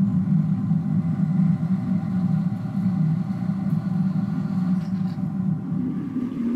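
Drill press running steadily, its bit boring into an aluminum fence rail held in a vise.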